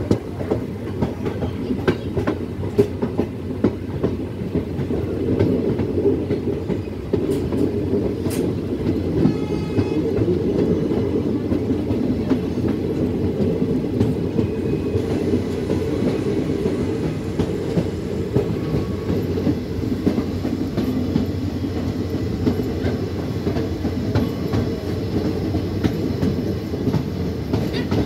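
Passenger train running at speed, heard from on board: a steady low rumble of wheels on the rails, with scattered clicks as the wheels pass over rail joints.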